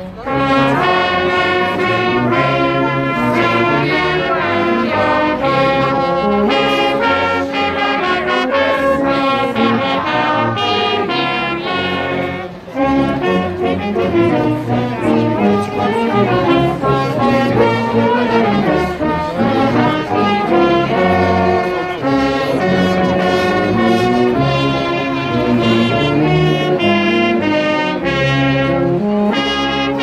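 Brass band with trombones playing a tune, with a brief break about twelve and a half seconds in before it carries on.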